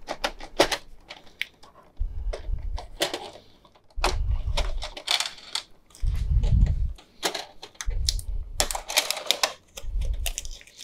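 Clear protective plastic and tape being peeled off a new Canon PIXMA TS8320 printer: rapid crinkling and crackling of the plastic, with sharp clicks and taps from the printer's plastic panels. Dull rubbing thumps come five times as the plastic is handled.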